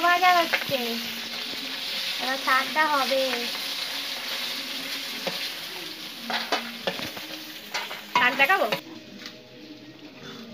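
Food frying in hot oil in a metal kadai, sizzling steadily while a metal spatula stirs and scrapes against the pan. The sizzle cuts off near the end.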